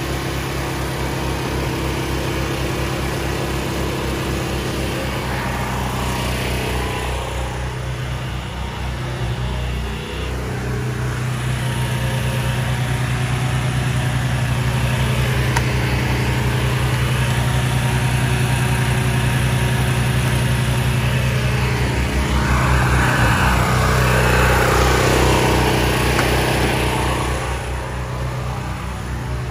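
Gas engine of a pressure washer running steadily. A louder rushing noise lies over it from about ten seconds in until near the end.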